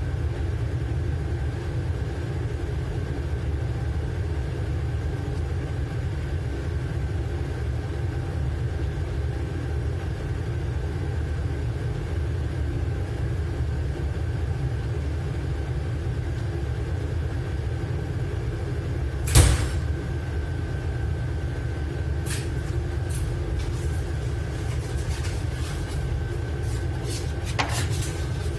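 Steady low drone of a docked dredger's onboard machinery. One sharp knock comes about two-thirds of the way in, and light clicks and clinks of food containers being handled follow near the end.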